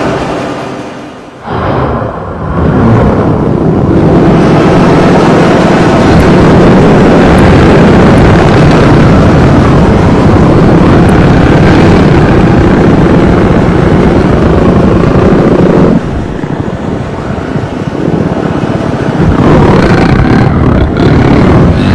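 Harsh noise music: a very loud, dense wall of distorted noise. It drops away briefly about a second in and eases off for a few seconds near the end before coming back at full level.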